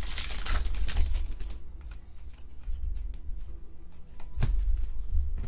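Foil trading-card pack wrapper crinkling and cards rustling as they are handled for the first second or so, then quieter sorting of the cards with a couple of sharp taps near the end.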